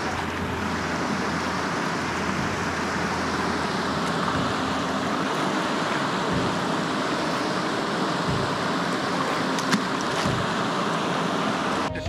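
Steady rush of fast-flowing river water over riffles.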